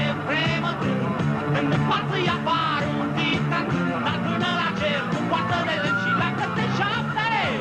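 Rock song played by a band with drums and electric guitar, a man singing the lead over a steady beat.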